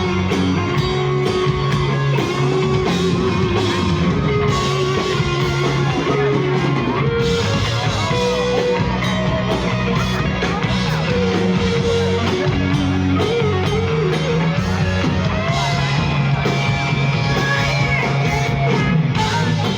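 A rock song with guitar and a singing voice.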